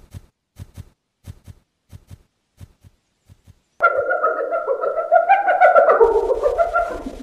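Cartoon giraffe hoof footsteps, two clops at a time, fading as it walks away. About four seconds in, a loud animal call with a wavering, stepping pitch starts and runs for about three seconds, while quick trotting footsteps begin under it.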